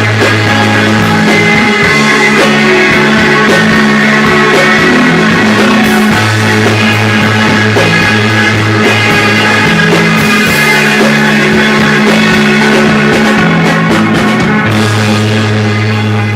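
Rock band playing live and loud: guitars, bass and drums, with the bass holding long notes that change every second or two and cymbals ringing over the top.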